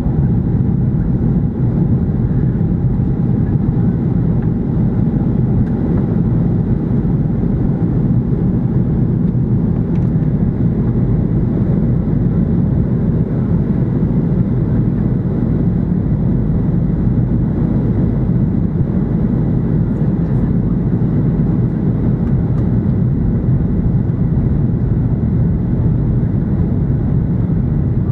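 Steady low rumble of a Boeing 737-800's CFM56-7B engines and rushing air, heard inside the passenger cabin, holding an even level and pitch throughout.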